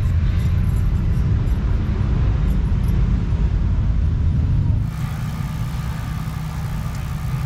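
Low, steady rumble of vehicle engines running. About five seconds in it cuts to a quieter background with a faint steady hum.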